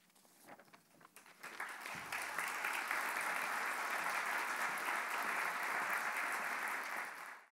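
Audience applauding, swelling over the first two seconds and then holding steady, cut off abruptly near the end.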